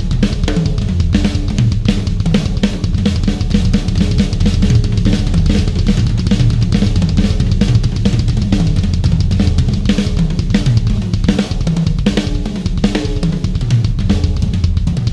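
Drum kit, a Yamaha Stage Custom Birch combined with Stage Custom Hip drums, played in a continuous busy groove: bass drum, snare and cymbals struck in quick succession without a break.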